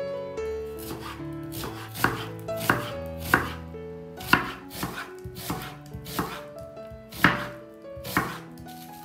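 Kitchen knife slicing an onion on a bamboo cutting board: about ten sharp knocks of the blade striking the board, starting about two seconds in, over background music.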